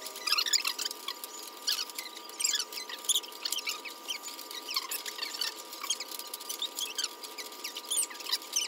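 Wrapped Laffy Taffy candies and their plastic bags crinkling as handfuls are picked up and dropped into bowls: a quick, irregular run of thin, high crackles and squeaks.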